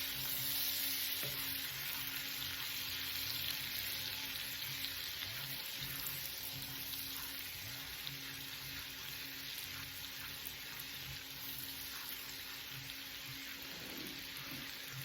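Minced garlic sautéing in melted butter in a pan: a steady frying sizzle.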